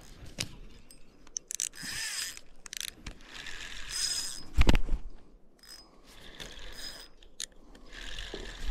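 Fishing reel cranked in repeated short bursts of rasping, whirring gear noise while a hooked trout is reeled in. A single dull thump comes about halfway through.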